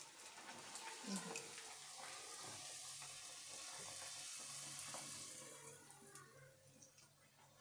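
Bhatura deep-frying in very hot oil in a small iron pan: a steady sizzle that swells over the first couple of seconds and dies down near the end, with a few light clicks about a second in.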